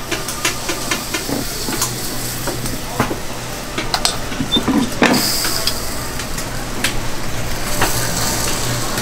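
Waffle batter sizzling on a hot waffle iron, with scattered light clicks and taps of utensils; the sizzle grows stronger about five seconds in.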